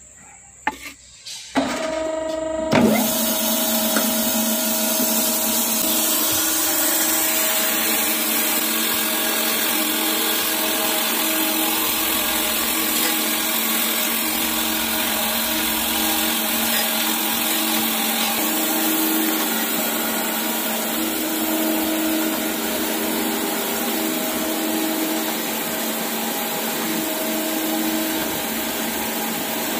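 Surface grinder switched on with a few clicks, then its motor and grinding wheel start about two seconds in and run steadily, a hum with a broad hiss. The wheel is refacing a worn clutch plate held on the magnetic chuck, under a spray of coolant.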